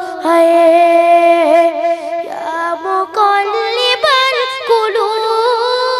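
A boy singing a Bangla Islamic gojol solo into a microphone, holding long wavering notes that climb higher about three seconds in.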